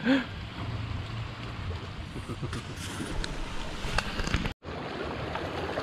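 Shore ambience: wind rumbling on the microphone over small waves washing on a pebble beach, with a few light clicks. The sound cuts out for an instant a little past the middle.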